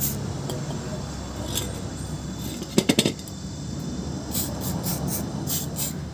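Metal tools and parts clinking while being handled, with a quick run of three sharp metallic clinks about three seconds in and lighter ticks around them.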